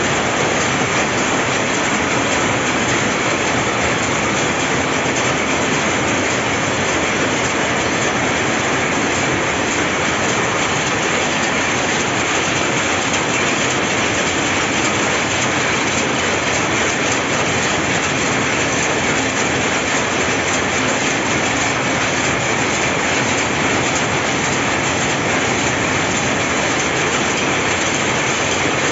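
Power looms running in a weaving shed: a loud, steady mechanical clatter.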